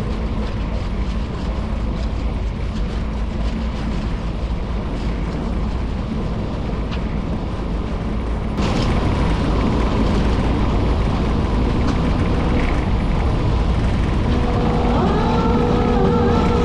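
Steady mechanical rumble of a scallop-fishing boat's engine and deck machinery. It steps up suddenly about two-thirds of the way through, and a steady whine at several pitches joins near the end.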